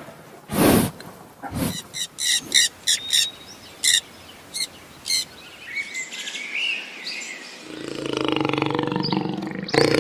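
A run of short, high-pitched animal calls, then near the end a cow starts a long, low moo.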